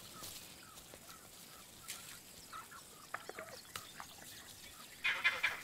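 Wild animal calls in the bush: faint scattered chirps and clicks, then a louder burst of rapid calls about five seconds in.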